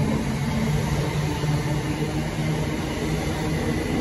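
Royal Mail Class 325 electric postal train running through the station past the platform: a steady rumble of wheels on rail with a low hum.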